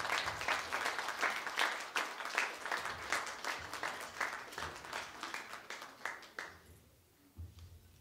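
Audience applauding, the clapping thinning out and dying away about six and a half seconds in.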